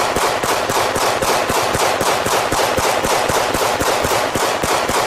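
Handgun fed from a very long flexible magazine, firing an unbroken string of rapid shots, about seven a second.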